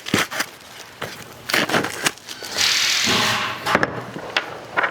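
Packaging being unwrapped from a table foot: crinkling and rustling with scattered clicks and knocks of handling, and a harsher noisy stretch of about a second near the middle.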